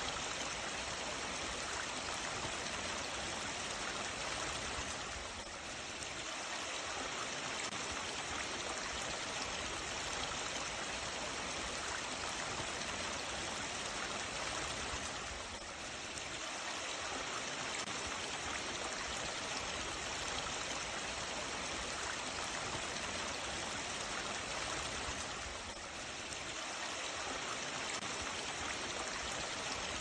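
Mountain valley stream and a thin waterfall running over rock: a steady rush of water. It dips slightly in loudness three times, about ten seconds apart.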